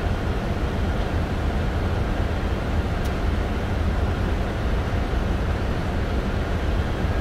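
Steady low rumble of a Boeing 747-400 flight deck in flight on approach, with a faint click about three seconds in.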